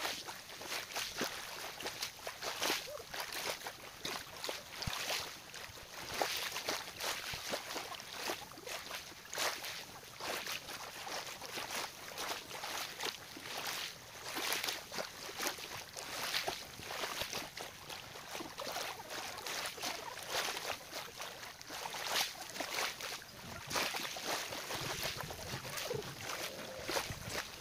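Gentle waves lapping at a sandy shoreline, an irregular run of small splashes and washes.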